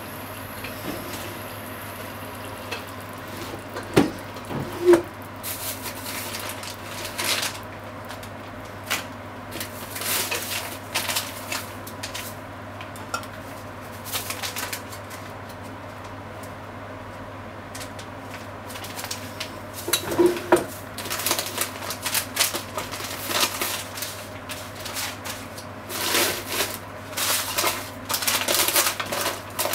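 Long bamboo cooking chopsticks stirring and breaking up ground chicken in a frying pan, with irregular scraping and a few sharp taps against the pan, over a steady low hum.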